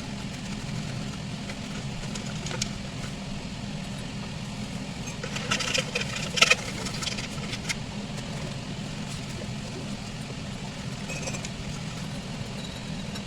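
A steady low mechanical hum, with a cluster of sharp clicks and knocks in the middle; the loudest knock comes about six and a half seconds in.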